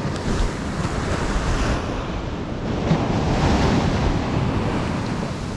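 Small surf breaking and washing up a sandy beach, with wind buffeting the microphone; the wash swells about three seconds in as a wave rolls up the shore.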